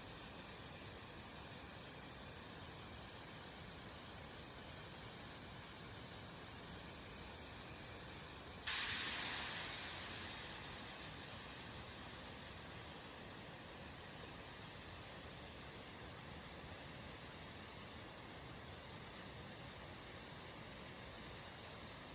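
Steady high-pitched electronic hiss with no natural sound beneath it. A softer wash of noise comes in suddenly about nine seconds in and fades away over a few seconds.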